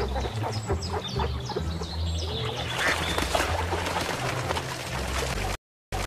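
A group of mallard ducks quacking and calling during their courtship display, with many short overlapping calls. The sound cuts off abruptly near the end.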